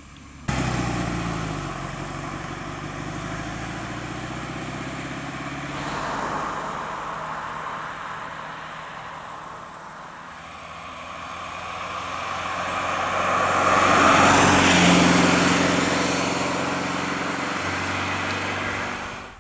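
Classic sports car's engine running under way, its note growing louder as the car comes close and passes about two-thirds of the way through, then cutting off just before the end.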